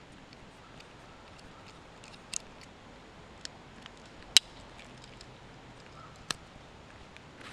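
Victorinox Swiss Army knife blade whittling a tulip poplar branch: a few short, sharp snicks of the blade cutting wood, the loudest about four seconds in.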